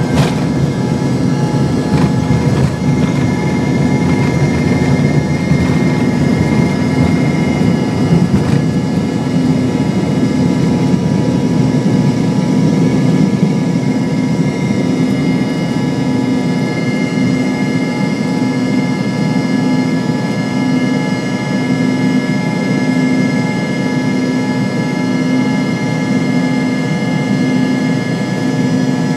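Cabin noise inside an Embraer ERJ-145 regional jet during takeoff: its rear-mounted Rolls-Royce AE 3007 turbofans running at high power, a steady rumble with several high whining tones held over it.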